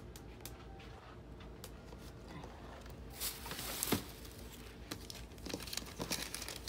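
Plastic shopping bags rustling and crinkling in a short burst about three seconds in, over a faint steady hum.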